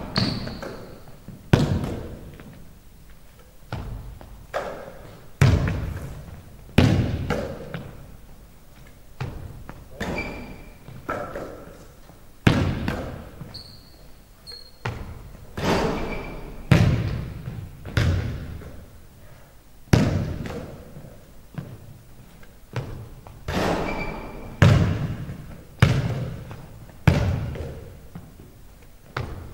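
A basketball bouncing on a hardwood gym floor, thudding about every second and a half, each bounce ringing out in the big hall's echo. A few brief high squeaks of sneakers on the wood come between the bounces.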